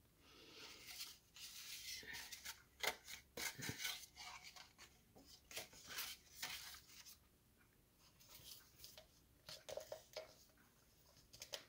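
Quiet rustling and sliding of cardstock pieces being handled, with scattered light taps and clicks.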